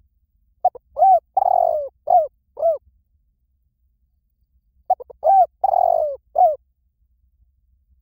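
Spotted dove cooing in the 'liu tan' call pattern: two phrases a couple of seconds apart, each a run of short arched coos with one longer coo in the middle.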